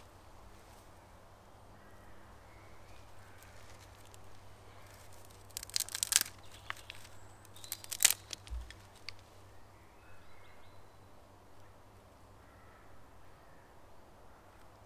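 Small dry twigs being laid on a newly lit cedar-bark tinder fire, giving sharp crackles and snaps in a cluster about six seconds in and again about eight seconds in, against a quiet woodland background.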